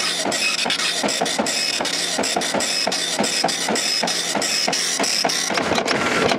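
Okidata Pacemark 3410 9-pin dot matrix printer printing a page of text in double-strike mode, its print head hammering the paper in quick, even passes a few times a second. The printing cuts off at the very end.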